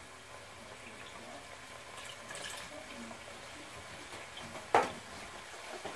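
Faint trickle of white vinegar being poured from a bottle onto chicken in a pan. A single sharp click comes about three-quarters of the way in.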